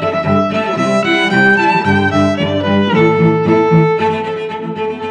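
Background music: bowed strings playing a melody of changing notes.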